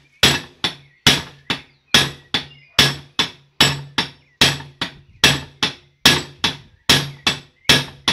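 Hand hammer striking an iron terminal sleeve held in a bench vise, crimping it onto a steel handbrake cable. The blows come in a steady rhythm of about two a second, alternating heavier and lighter, and each leaves a short metallic ring.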